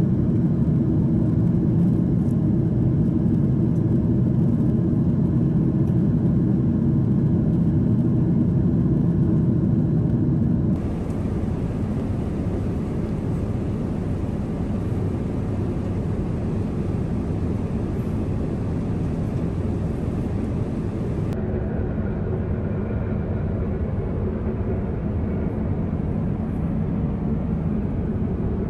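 Steady cabin noise of a Boeing 777-300ER at cruise: an even low rush of engines and airflow. It changes abruptly twice, dropping a little in level about 11 seconds in and shifting in tone again about 21 seconds in.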